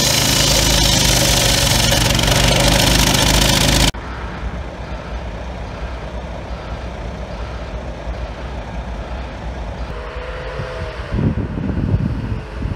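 Petrol-engined walk-behind floor saw running loud and steady at full speed, cut off abruptly about four seconds in. After that there is a quieter steady outdoor background, and near the end an ambulance engine rumbles as it drives up, with a brief wavering tone.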